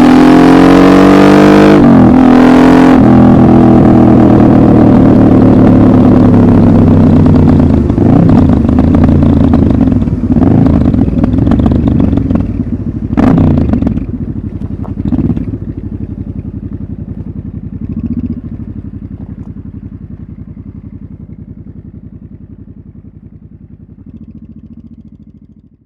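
Honda Transalp 700 motorcycle engine through a Dominator muffler with the dB-killer removed and a LeoVince decat tube, running loud, with a quick drop and rise in revs about two seconds in. Later the sound fades away gradually, broken by a few short throttle bursts.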